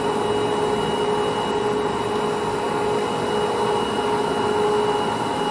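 Jinling 25180G gap bed engine lathe running under power, its gearing and carriage feed drive making a steady hum with a constant whine.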